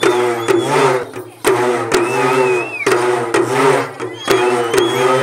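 Urumi drums playing: sharp stick strokes over a groaning tone that bends up and down about once a second, with a thin high wavering tone above it.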